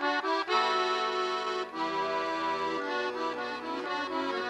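Accordion playing an instrumental folk tune: a melody over held chords, with the bass notes changing every second or so.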